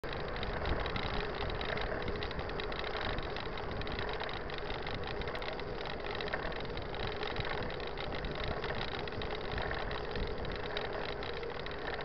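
Steady rushing noise of a mountain bike rolling along an asphalt road: tyre noise and wind on the bike-mounted camera, with no clear rise or fall.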